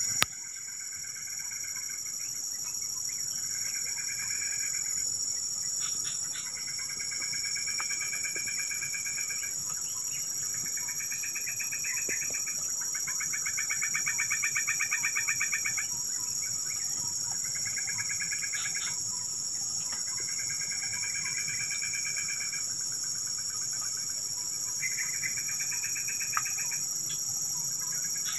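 Insects shrilling steadily in high, unbroken tones. Over them, an animal calls over and over in pulsed trills, each lasting one to two seconds, every couple of seconds. A sharp click comes right at the start.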